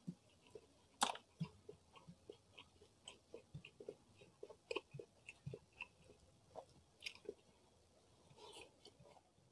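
Close-miked chewing of rice and fried salted fish eaten by hand, a string of short mouth clicks, the sharpest about a second in. A brief soft rustle comes near the end as fingers gather another handful of rice.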